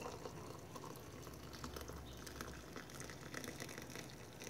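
Hot water pouring from a kettle into a mug over a tea bag: a faint, steady splashing trickle.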